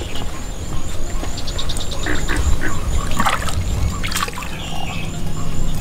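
Bass being released over the side of a boat into the lake: several small splashes as the fish drop into the water, with water dripping and trickling from hands and fish.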